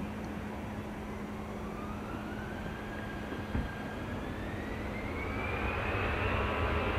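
Airbus A321 jet engines spooling up for takeoff: a whine that rises slowly and steadily in pitch over a low engine hum, growing louder toward the end. A brief knock about three and a half seconds in.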